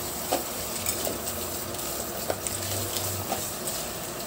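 Chicken adobo cooking in a wok, a steady sizzle with a few faint scattered crackles.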